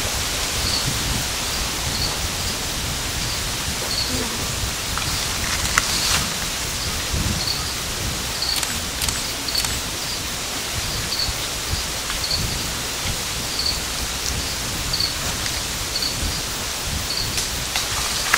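Steady outdoor hiss with uneven low rumbling, and a faint high chirp repeating about every two-thirds of a second. A few brief clicks come about a third of the way in and again near the middle.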